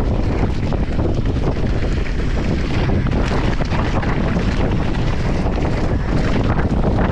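Wind rushing over a GoPro's microphone on a downhill mountain bike descending at speed, mixed with tyre noise on a rough dirt and rock trail and constant small knocks and rattles from the bike.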